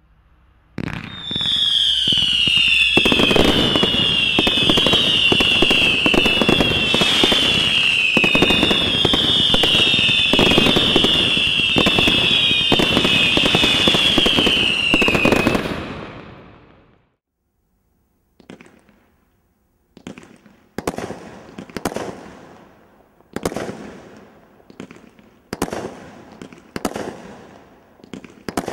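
Grand Slam GS2352GB firework display kit firing. For about fifteen seconds there is a dense, continuous crackle with a falling whistle repeating about every second and a half; it fades out. After a short pause comes a series of separate shots about a second apart.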